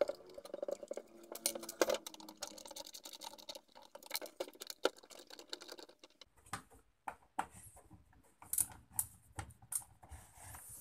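Rapid, irregular clicks, taps and light knocks of a homemade marble gun's parts being handled and taken apart, the clicking thinning out after about six seconds.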